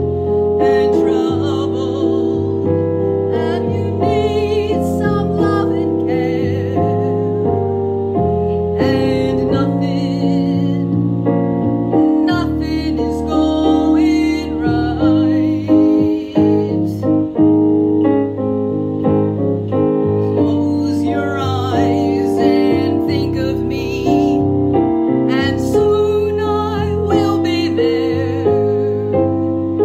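A woman singing with vibrato over piano accompaniment.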